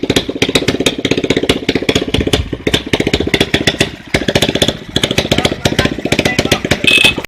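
Small motorcycle engine idling close by, with a fast, even run of firing pulses, about eight a second. A short high tone sounds near the end.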